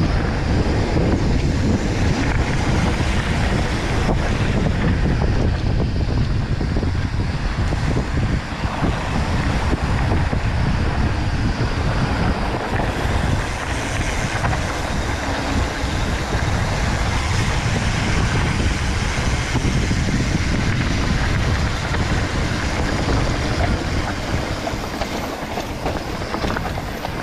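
Mountain bike running over rough singletrack: a continuous rattle and clatter from the bike, with heavy low rumble on the microphone, easing off near the end.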